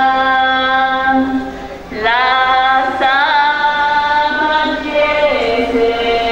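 Voices singing a slow religious chant in long held notes; a phrase ends and a new one begins about two seconds in with an upward slide into the note.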